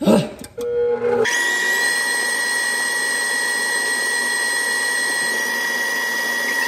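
KitchenAid Professional 5 stand mixer motor starting up after a brief knock, then running at a constant speed with a steady high whine as it beats butter and sugar until light and fluffy.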